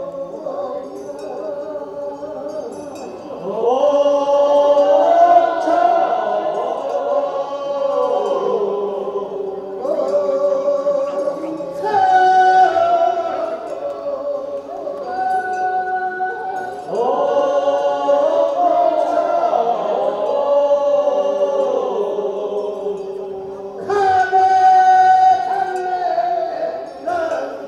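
Korean funeral bier song (sangyeo-sori) sung call-and-response: a single lead voice calls a short line, and a chorus answers with a longer drawn-out refrain. This happens twice, and the lead calls again near the end.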